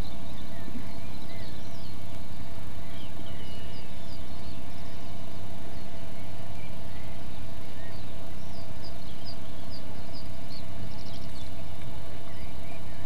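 Steady low hum with many short, high bird chirps scattered throughout.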